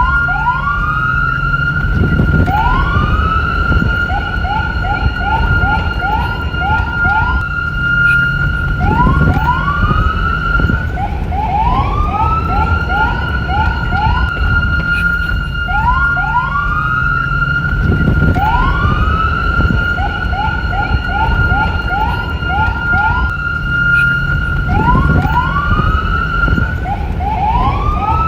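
Police car siren cycling through its tones: a rising whoop up to a long held high tone, then a quick run of short chirps, the pattern repeating every several seconds. A low rumble runs underneath.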